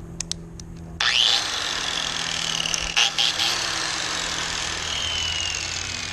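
A few light clicks, then about a second in a power tool fitted with a wide wire wheel switches on and whines up to speed, spinning freely with no load. Its whine then drifts slowly lower in pitch as it keeps running, with a couple of knocks along the way.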